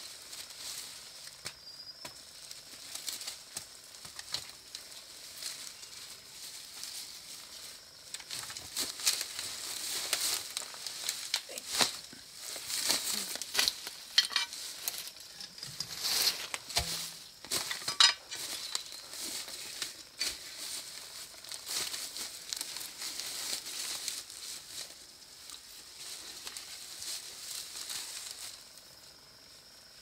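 Dry grass and brush rustling and crackling as a woven bamboo back basket is handled, with short scrapes and knocks, busiest in the middle and ending with two sharp knocks.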